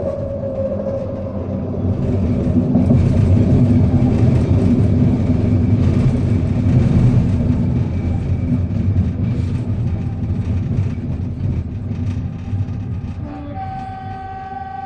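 Weird noises from a stopped 1985 UTDC ICTS Mark I SkyTrain car. A falling whine fades out at the start, then a loud low rumble swells and eases off, and a steady high hum starts near the end.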